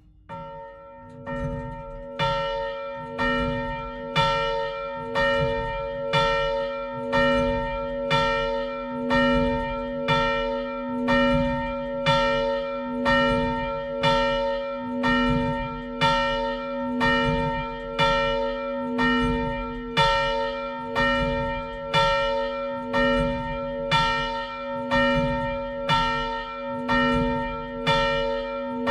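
Large bronze church bell tuned to b¹, about 370 kg, cast by the Fischer brothers of Trnava in 1930, swinging and rung on its own. Its clapper strikes about once a second. The first strokes, just after the start, are softer as the bell is rung up, then the strokes settle into a steady, even ringing that overlaps from one stroke to the next.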